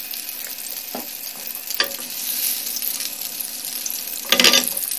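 Melted butter and cooking oil sizzling in a hot non-stick frying pan: a steady hiss with scattered crackles and pops. It turns briefly louder about four and a half seconds in.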